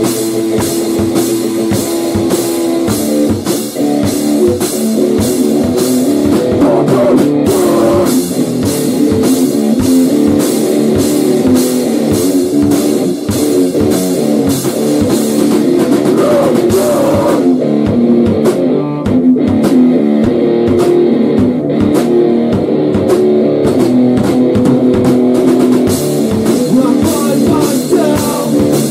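Rock band playing loudly: electric guitar over a fast, pounding drum kit, with no singing. About two-thirds of the way through, the cymbals drop out for a few seconds, then come back in.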